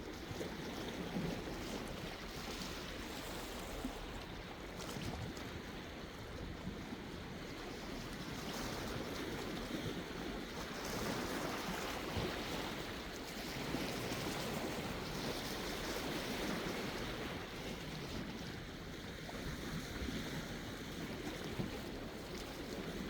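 Sea waves washing onto the shore in a continuous wash that slowly swells and eases, fullest in the middle stretch.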